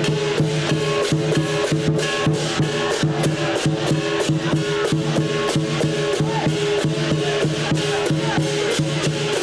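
Chinese lion dance percussion: a big drum with gongs and cymbals beaten in a dense, steady rhythm, the metal ringing on between strikes.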